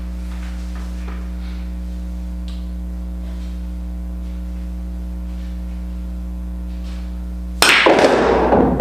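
Steady electrical mains hum. About seven and a half seconds in comes a sudden loud clack and clatter of a pool shot played with maximum draw at near full power: the cue tip strikes the cue ball, the cue ball hits the 1 ball, and the 1 ball drops into the corner pocket.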